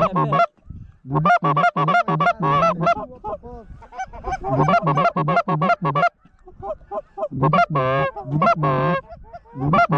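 Loud, rapid goose honking from close by: quick runs of short clucking honks, with a couple of longer wavering honks about eight seconds in. These are hunters' goose calls blown to bring circling geese in.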